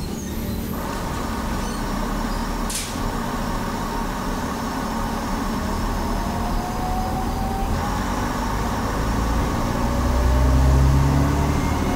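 British Rail Class 142 Pacer railbus with its original Leyland TL11 diesel engines running at a brief station stop, with a single sharp knock about three seconds in. From about halfway a rising whine sets in and the engines open up, growing louder near the end as the unit pulls away.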